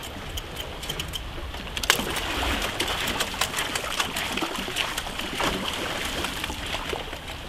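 Sea water splashing and crackling as the foils of a human-powered hydrofoil, pumped by the rider bouncing on it, slap and cut through the surface, with a sharp knock about two seconds in and the splashing louder after it.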